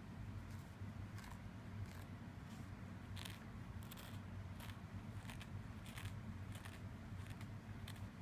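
Cat obsessively licking the inside of its plastic Elizabethan collar: a run of short, irregular clicks of tongue on plastic, about two a second, over a low steady hum.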